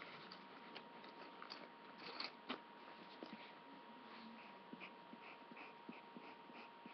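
Faint pencil strokes on paper: scattered light ticks, then a run of quick, short, evenly spaced strokes in the second half, over a low hiss and a faint steady whine.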